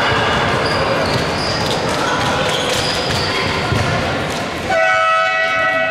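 Basketball game sounds in a gym: the ball bouncing, short high sneaker squeaks and voices. About three-quarters of the way through, the scoreboard horn sounds in one steady blast lasting just over a second.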